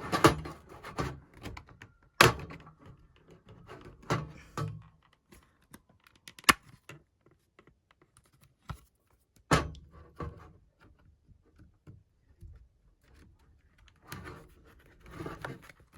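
Handling and prying at a tablet's plastic case: a series of sharp clicks and knocks a couple of seconds apart, with softer scraping and rustling in between and a longer patch of scraping near the end.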